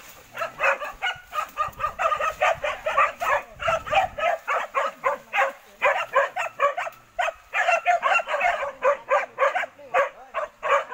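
Pack of hunting dogs barking rapidly and continuously, several barks a second, as they hold a wild boar at bay.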